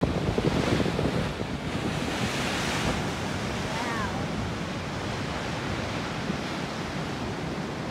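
Ocean surf surging and washing into a narrow rock channel, with wind buffeting the microphone. The surf is a little louder in the first three seconds, then runs steadily.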